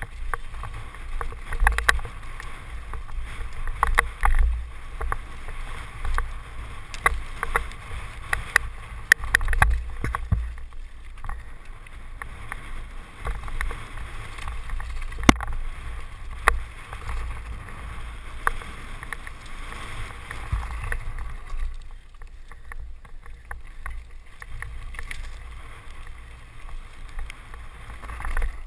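Downhill mountain bike clattering over a rocky dirt trail at speed: frame and parts rattle, with many sharp irregular knocks from rocks, over tyre noise on dirt and wind rumbling on the camera microphone. The knocks thin out and it goes a little quieter in the last several seconds.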